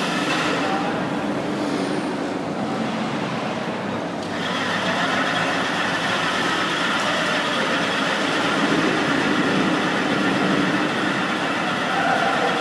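Steady background din of a busy indoor exhibition hall. It grows a little brighter and louder about four seconds in.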